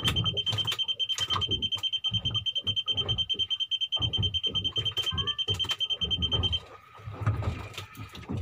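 A steady high-pitched electronic alarm tone holds, then cuts off suddenly about two-thirds of the way through, over a rapid low pulsing.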